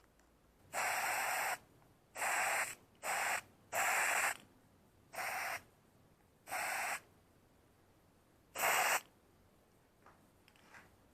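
Aerosol spray paint can spraying in seven short, sharp-edged bursts of hiss over the repaired plastic handle part.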